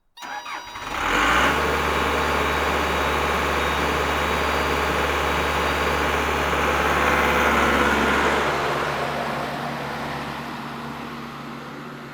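Bobcat loader's engine starting with a few brief sputters, then running steadily and loud; about eight seconds in the deep engine note drops away and the sound slowly fades.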